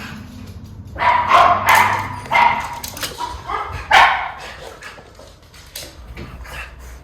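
Miniature schnauzer barking: about four loud, sharp barks between one and four seconds in, then a few fainter, sparser barks.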